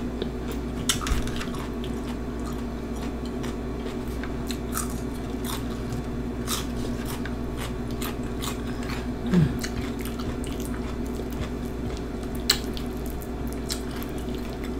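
A person chewing nachos topped with Flamin Hot Cheetos, cheese and sour cream, close to the microphone: scattered crunches and wet mouth clicks over a steady low hum.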